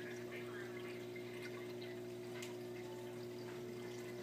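Aquarium running: a steady low hum with water trickling and a few faint ticks.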